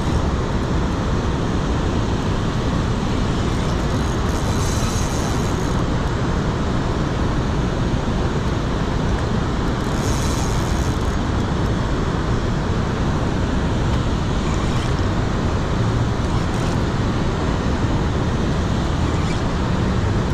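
Steady rush of water pouring over a dam spillway into the river below.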